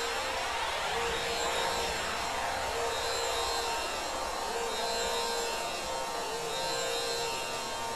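Background music: a steady ambient drone with a short note recurring about once a second.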